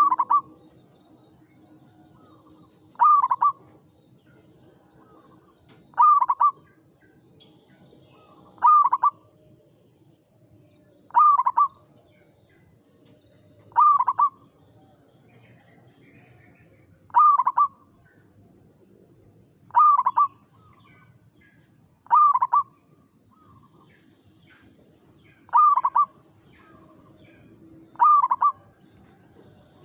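Zebra dove (perkutut) cooing: a short phrase of a few notes repeated evenly about every three seconds, eleven times.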